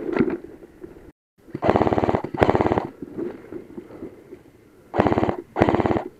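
Airsoft rifle firing four short full-auto bursts in two pairs, each burst a rapid even rattle of shots lasting about half a second.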